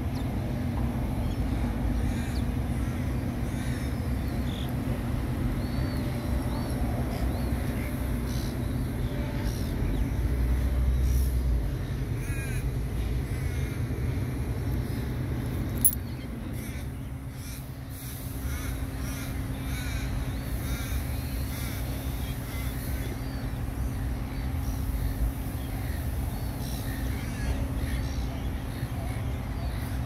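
A flock of silver gulls calling: repeated short, harsh squawks from many birds, over a steady low rumble.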